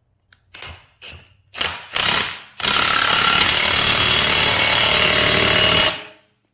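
Cordless impact gun hammering on the forcing screw of a ball joint press, pressing an upper ball joint into a steering knuckle: a few short bursts, then a steady run of about three and a half seconds that stops abruptly.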